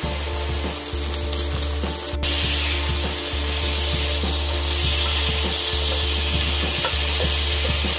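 Diced chicken sizzling in a hot pan on an induction hob, the sizzle growing louder about two seconds in. Under it runs a steady low hum that cuts out briefly every second or two, with light ticks scattered through.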